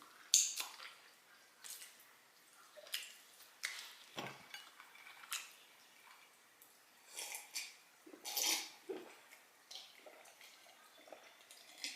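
A person eating: irregular soft mouth clicks and smacks of chewing, with occasional light clinks of cutlery on a plate.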